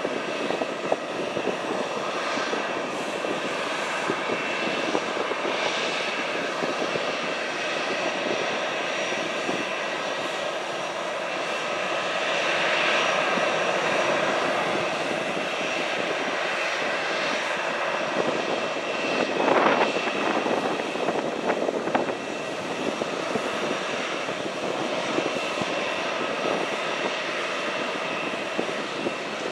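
Airliner engines running steadily with a high whine over a wide rush of noise, growing a little louder about halfway through. A short, louder rush of noise comes about two-thirds of the way in.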